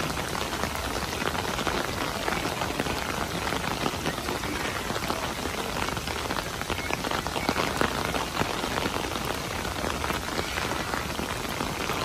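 Steady rain falling: a dense, even hiss of countless small drop hits on surfaces.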